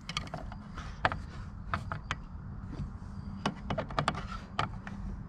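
Hex key turning and snugging down screws on a metal motor-mount plate: small, irregular metal clicks and ticks as the key is turned and re-seated in the screw heads.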